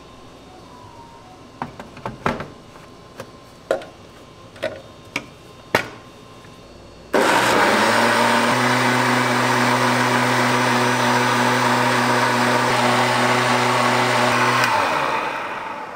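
Several short clicks and knocks, then a Shinil kitchen blender with a stainless steel jug starts about seven seconds in and runs steadily on a liquid, its motor pitch stepping up about a second after starting. It winds down near the end.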